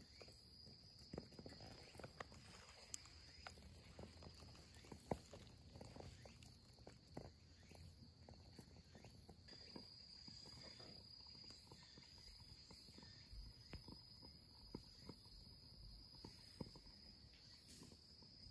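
Near silence: quiet forest ambience with a faint, steady high insect drone and scattered small ticks and clicks.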